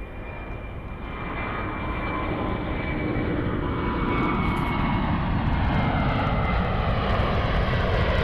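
Jet aircraft engines running, growing louder over the first few seconds and then holding steady, with a whine that slowly falls in pitch.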